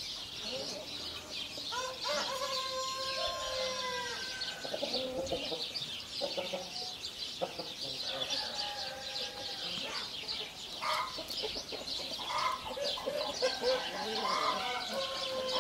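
Brahma chickens clucking on and off, several pitched calls over a busy high chatter.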